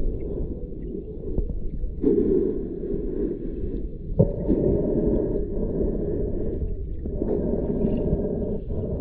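Muffled underwater rumble and gurgling of moving water, heard through a submerged camera, swelling and easing, with one short knock about four seconds in.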